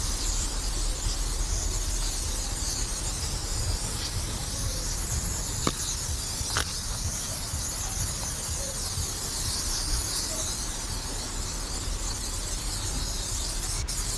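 Aerosol spray paint can hissing steadily as it sprays paint, over a low rumble. Two short clicks about a second apart near the middle.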